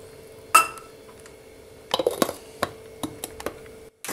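Stainless-steel mixer-grinder jar clinking and knocking as it is handled and its lid closed: one sharp ringing metallic knock about half a second in, a cluster of clatters around two seconds in, then a few lighter clicks.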